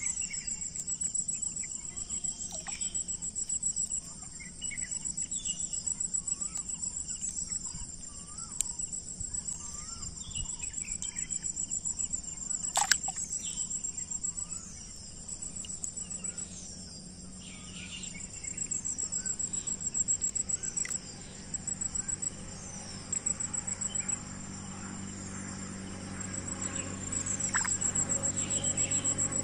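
Insects chirping: a high-pitched, rapidly pulsing buzz that comes in phrases a few seconds long with short breaks between them. A single sharp click sounds about thirteen seconds in.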